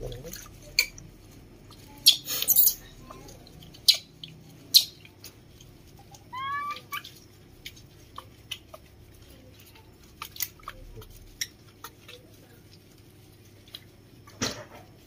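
A soapy newborn monkey being scrubbed by hand on a wet tile floor: scattered wet rubbing, splashing and knocking sounds, with a brief run of high, rising squeaks from a baby monkey about six and a half seconds in.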